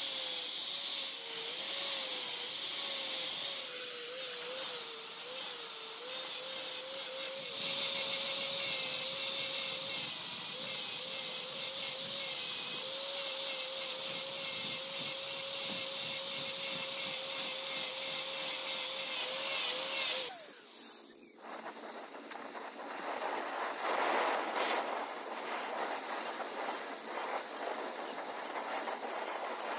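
Angle grinder grinding the teeth of a steel gear, its motor whine wavering in pitch as the disc bites. About twenty seconds in it cuts off and a steady hiss from a welding torch laying weld on the gear teeth takes over, with one sharp crackle a few seconds later.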